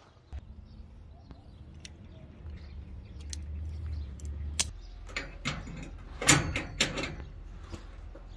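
Steel rigging hardware, a shackle and hook on a rope, clinking and rattling as it is handled, over a low rumble. The clinks come thicker in the second half, with a loud cluster about six seconds in.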